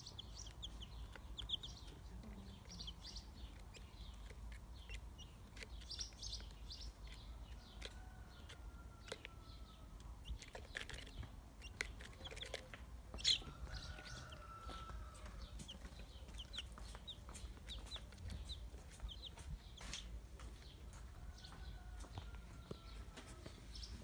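Young domestic chicks peeping in many short, high chirps, with scattered sharp taps and one louder tap about halfway through.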